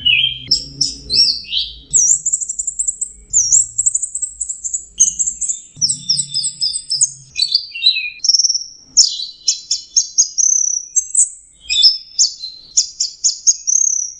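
Orange-headed thrush singing a fast, continuous, varied song of high whistles and trills, the notes sliding quickly up and down.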